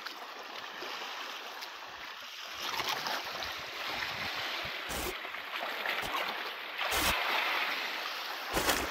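Small waves lapping and washing over a flat limestone shore ledge, a steady splashing wash that grows louder a few seconds in. Three brief bumps of wind on the microphone.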